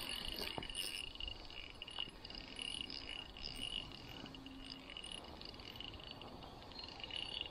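A steady, high-pitched trilling chorus of calling animals, with a couple of faint clicks.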